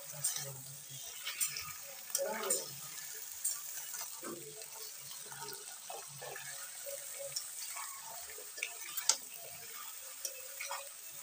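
Chicken pieces and fried onions sizzling in oil in a metal kadhai, with a flat metal spatula scraping and knocking irregularly against the pan as they are stirred and browned.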